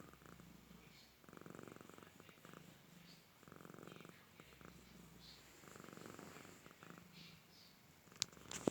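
Faint snoring during deep sleep, a rattling, purr-like sound on each slow breath, about one breath every two seconds. A sharp click comes near the end.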